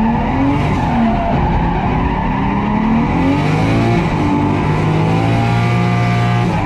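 Heard from inside the cabin, a drifting Nissan 240SX's swapped 1JZ-GTE turbocharged straight-six revs up and down repeatedly, then climbs and holds high for the last couple of seconds before dropping off, with tyres skidding.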